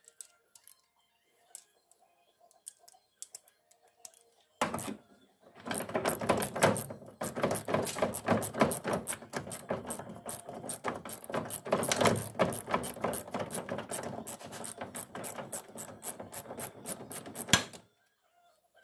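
Hand ratchet wrench clicking in a fast, steady run as it turns out a van door hinge bolt, starting about five seconds in and stopping with a sharp click near the end.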